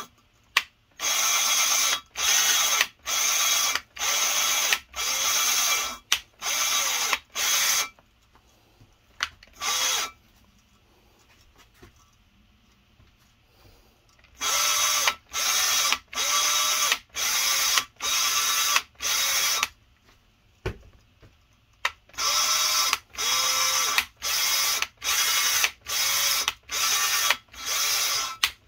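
Electric drill spinning a valve against its seat in a Mopar 360 cylinder head to lap it in with grinding compound, run in short on-off bursts of about one and a half a second, the motor pitch rising at each start. The bursts come in three runs, with a pause of several seconds about a third of the way in and a shorter one about two thirds in.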